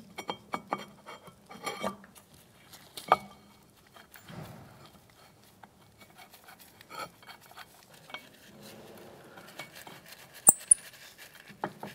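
Light metallic clinks and scrapes of a rear brake caliper bracket and its mounting bolts being handled and threaded in by hand, with a sharper click about three seconds in and two more near the end.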